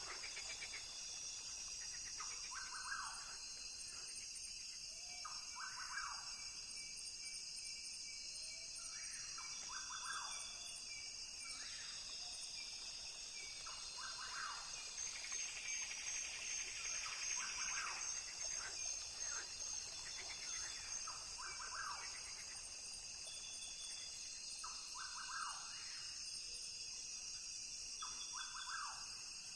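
Rainforest ambience: a steady, high-pitched chorus of insects, with birds calling in short phrases every few seconds.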